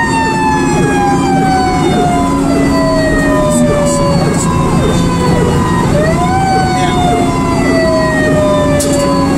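Fire engine siren wailing, heard from inside the cab: its pitch winds up quickly, slides slowly down for about five seconds, then winds up again about six seconds in. The truck's engine drones steadily underneath.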